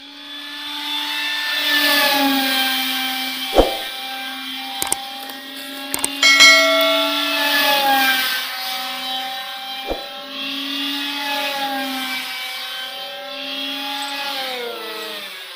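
Whine of the RC plane's 2212 2200 KV brushless motor and 6-inch propeller in flight, holding a steady buzz that shifts in pitch with the throttle and drops near the end. A few sharp clicks break in, the loudest a little after 6 seconds.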